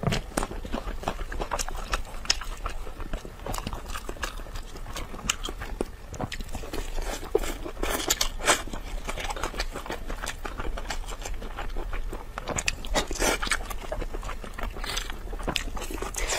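Close-miked eating sounds: biting into braised ribs, tearing meat from the bones and chewing, heard as a steady run of irregular sharp clicks and short crunchy bursts.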